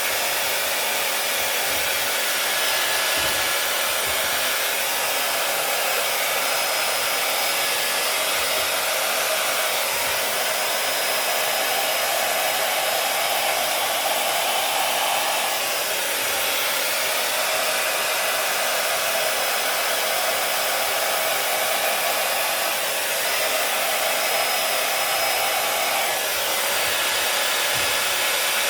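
Hair dryer with a flat-faced nozzle attachment running steadily, blowing air across wet paint on a canvas; its airflow dips briefly in tone a couple of times.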